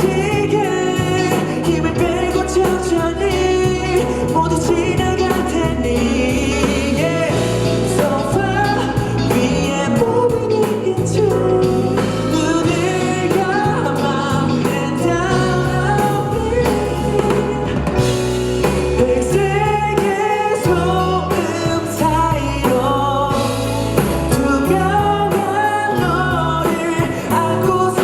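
Pop song playing loudly, with singing over bass and drums.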